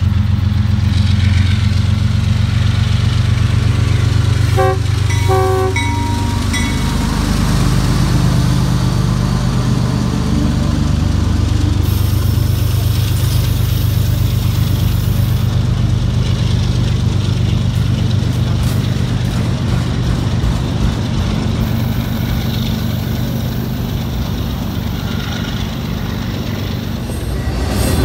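Diesel freight locomotives approaching under power with a steady low engine drone, and a few short horn blasts about five seconds in. The engine note drops as the locomotives pass, giving way to the steady rumble and clatter of autorack and double-stack container cars rolling by.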